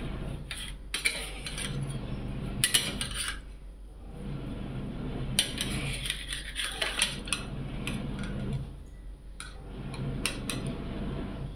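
Kitchen utensils and metal pots clinking and clattering in several short bursts, over a steady low hum.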